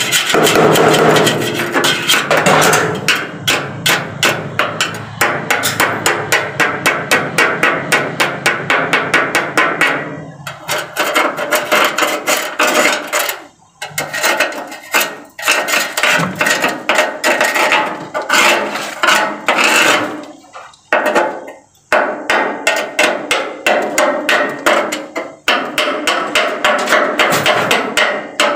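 Hand hammer striking the bare steel roof and door frame of a car body. The blows come fast and steady, about three a second, with a few brief pauses.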